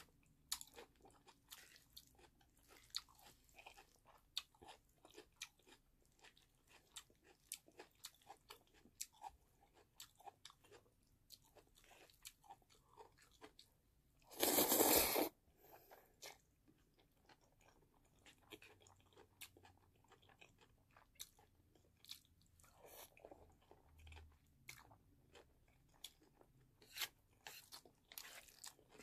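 Close-miked eating of jjajangmyeon (black bean noodles with julienned cucumber): many small wet mouth clicks and crunches of chewing, with one loud noodle slurp lasting under a second about halfway through.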